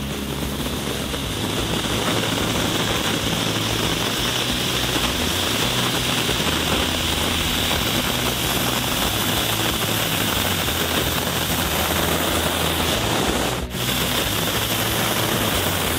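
Cone-shaped firework fountains burning with a steady, loud rushing hiss, with a brief break near the end.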